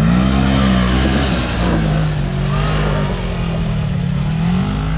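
Off-road vehicle engine revving under load, its pitch rising and falling repeatedly as the throttle is worked.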